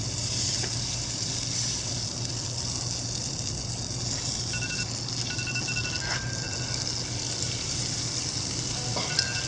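Steady hiss of a grill cooking over low heat, with a low hum underneath. A few faint, short, high two-note chirps come in around the middle and again near the end.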